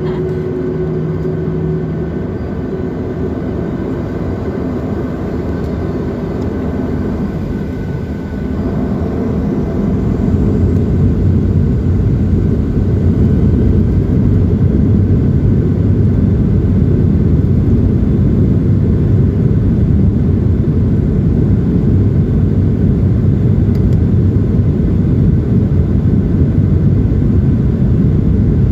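Boeing 737-700's CFM56 engines heard from inside the cabin: a steady hum with a few held tones at first, then, about ten seconds in, the engines spool up to takeoff thrust and a loud, steady low rumble fills the cabin.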